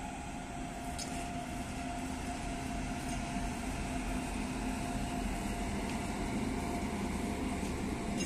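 Electric container freight train hauled by a WAG-9HC locomotive rolling past: a steady rumble of wheels on rail that grows slightly louder as the container wagons pass, with a faint steady whine and a few light clicks.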